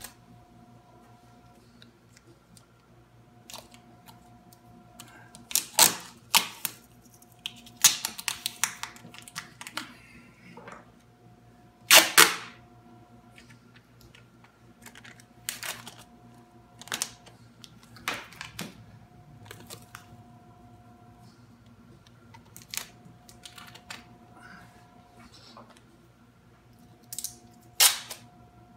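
Clear packing tape being pulled off the roll in short jerks and pressed onto the edge banding of a laminate countertop: a string of sharp, crackling rips, some single and some in quick clusters, with quiet gaps between.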